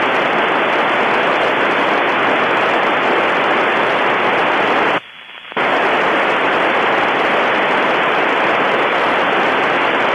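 Steady loud static hiss from an Icom IC-746PRO receiver on the 145.80 MHz FM downlink of the space station, the noise of the FM receiver with no signal coming through. It drops out for about half a second some five seconds in, then the hiss returns.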